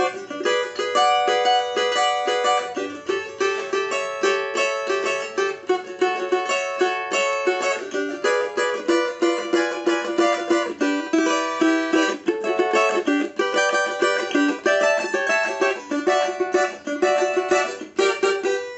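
Solid-top cavaquinho being played in a quick, steady rhythm of chords and notes, with a deep, full-bodied tone.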